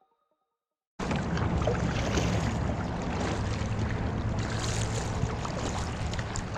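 Wind buffeting the microphone on a kayak out on open water, with water lapping and small clicks, starting abruptly about a second in. The last notes of a marimba tune fade out just before it.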